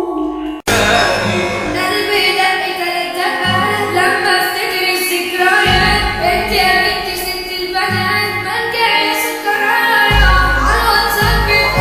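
Music with a woman singing a melody over instrumental backing; the sound cuts out briefly about half a second in, and a deep bass comes in partway through.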